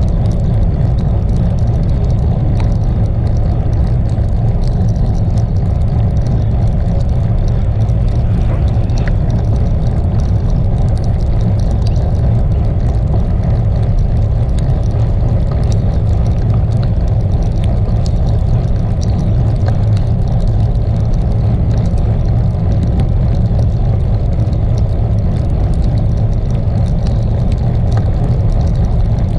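Steady low rumble of wind buffeting a bike-mounted camera's microphone as a bicycle rides along a wet road, with the hiss of tyres on wet asphalt underneath.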